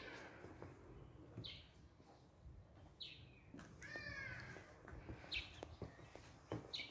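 Faint, short high-pitched animal calls, about six of them roughly a second apart, several falling in pitch.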